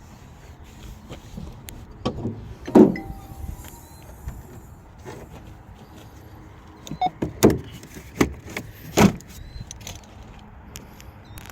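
Several sharp knocks and clunks over a low background: one loud knock about three seconds in, and a cluster of four or five more between about seven and nine seconds in.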